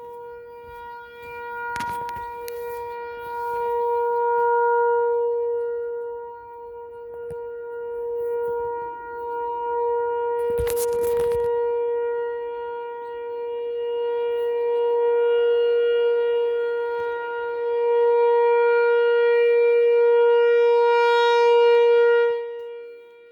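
ASC T-108 outdoor warning siren sounding a steady, single-pitch tone during a test, so loud it hurts the ear, its loudness swelling and fading every few seconds.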